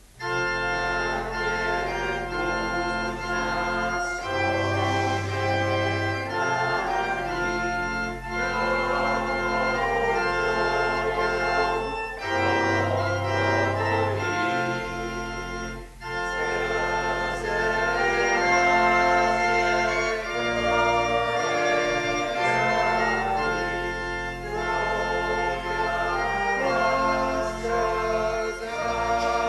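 Church organ playing a hymn with sustained chords, accompanying a congregation singing along, with short breaks between phrases.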